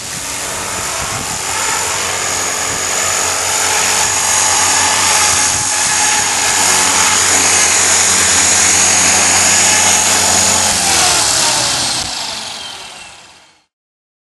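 RC helicopter's engine and rotors running steadily in flight, a loud buzzing drone with a high whine; the sound fades out near the end.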